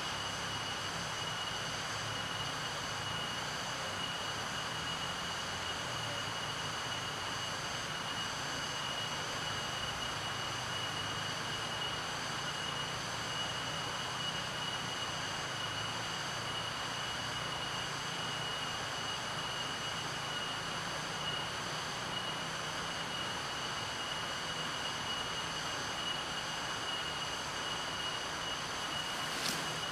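Insects buzzing steadily: a high, even whine over a low hum that stays unchanged throughout.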